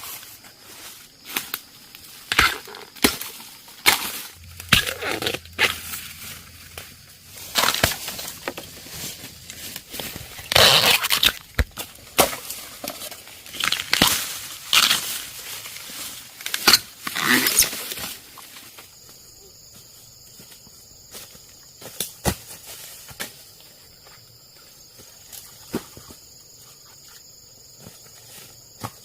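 Irregular crisp rustling and crunching with sharp snaps and clicks, like dry plant material being handled or trodden. It stops about two-thirds of the way in, leaving a steady high insect chirr.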